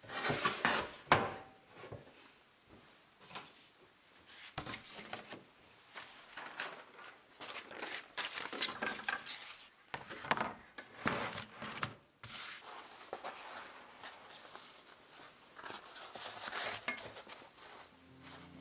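Baking parchment rustling and crinkling as it is laid out and smoothed by hand on a sheet of cardboard, with light handling knocks, one of them sharper about a second in.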